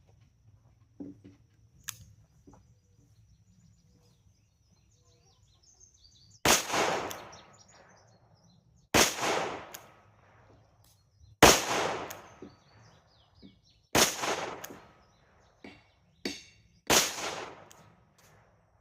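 Five shots from a .38 Special five-shot snub-nose revolver (Heritage Roscoe), fired at an even pace about two and a half seconds apart, each with a short echo trailing off.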